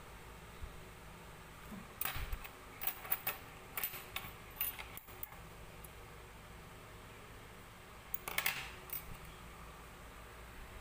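Light clicks and rustles of a crochet hook and yarn being handled, in a flurry from about two to five seconds in and a shorter one about eight seconds in.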